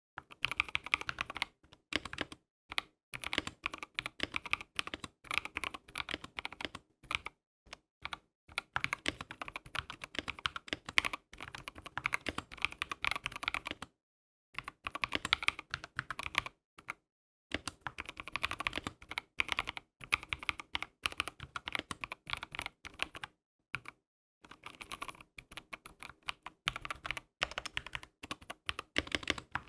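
Typing on an Ardor Gaming Katana mechanical keyboard with a tape mod: rapid runs of keystroke clicks and clacks in bursts of a few seconds, with short pauses between them.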